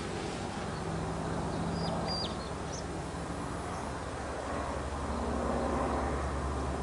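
Outdoor ambience: a steady low hum like a distant engine, swelling slightly near the end, with a few short, high bird chirps about two seconds in.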